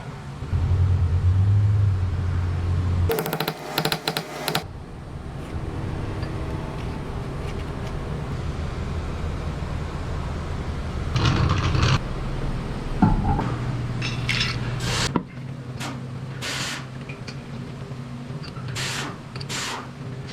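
A steady low hum with several short bursts of clattering metallic tool noise, the longest a little over a second long, about three seconds in.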